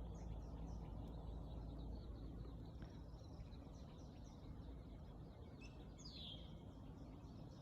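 Small birds chirping repeatedly over a steady low outdoor background rumble, with one louder call sweeping downward about six seconds in.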